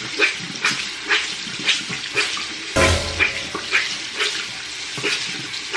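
Tap water running while a beauty blender makeup sponge is wetted under it, with a pulse about twice a second. One louder bump comes about three seconds in.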